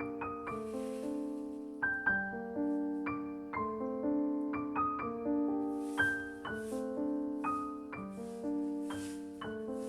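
Background music: a slow piano-like keyboard piece of sustained notes that each start sharply and fade away.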